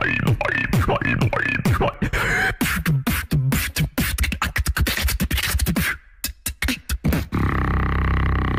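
Beatboxing into a handheld microphone. It opens with rising-and-falling pitched sweeps about twice a second, turns into fast, dense percussive clicks and snares, and near the end breaks into a held, low growling bass.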